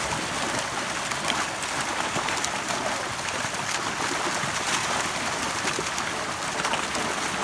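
Dense mass of fish thrashing and splashing at the surface of a hauled-in harvest net, a steady crackling hiss of water.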